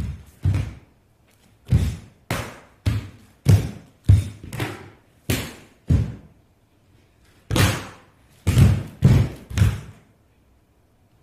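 A run of loud, irregularly spaced heavy thuds with a short echo, roughly two a second, stopping near the end.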